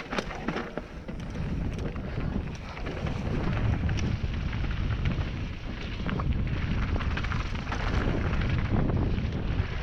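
Wind rushing over a helmet-mounted camera's microphone on a fast mountain-bike descent, with the tyres crunching over loose rock and the bike rattling in many short clicks.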